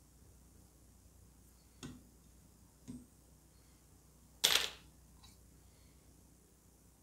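Quiet handling at a fly-tying vise: two small clicks, then one loud, sharp snap about four and a half seconds in.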